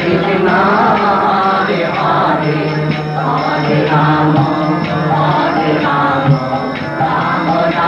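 Devotional chant music: a mantra sung in a melodic chant over instrumental accompaniment.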